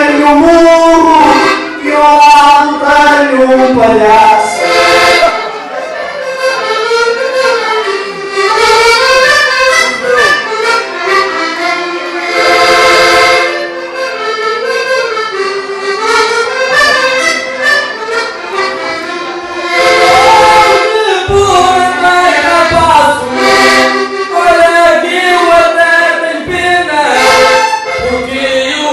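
Button accordion playing a lively Portuguese desgarrada tune, with male voices singing improvised verses over it in turn.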